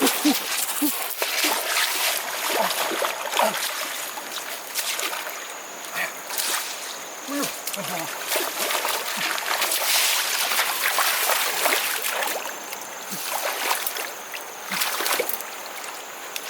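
Hands slapping and wading in shallow river water: irregular splashes and sloshing.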